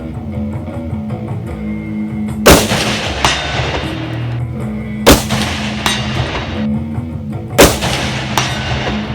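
Three rifle shots from a Mosin Nagant M39, a 7.62×54R bolt-action, about two and a half seconds apart, each ringing out after the crack. Guitar music plays underneath.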